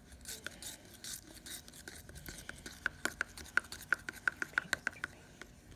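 Paintbrush stirring runny, watered-down acrylic paint in a small plastic paint cup. It scrapes and swishes at first, then from about halfway it knocks rapidly against the cup's sides in quick sharp clicks, several a second.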